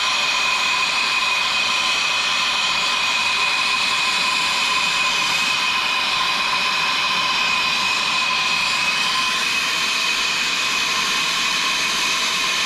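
Handheld gas torch burning steadily, heating a pipe and fitting for soldering: an even rushing hiss with a thin whistle held on two steady high notes.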